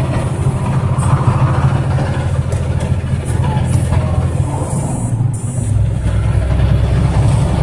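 Heavy truck's diesel engine pulling steadily under load, heard from inside the cab as the truck accelerates onto the highway. About five seconds in the sound dips briefly and then settles at a deeper pitch.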